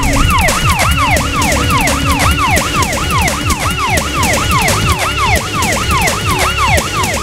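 Electronic siren sound effect played over the stage loudspeakers: a fast yelp-style wail, each sweep rising and falling, repeating about three times a second, over a loud low rumble.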